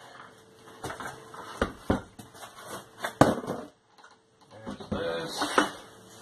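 Scattered knocks and clicks of a new garbage disposal and its parts being handled and set down.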